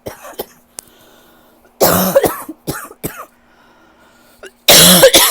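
A person coughing in repeated harsh bouts from a persistent cough: a loud fit about two seconds in and another near the end, with smaller coughs between.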